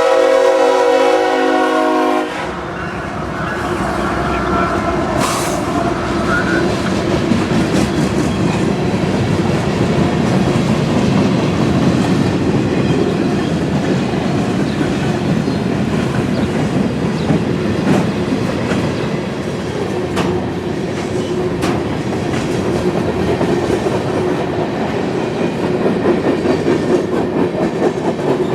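Diesel locomotive horn sounding a chord for about two seconds and cutting off, then a train rolling steadily past, its wheels running over the rails.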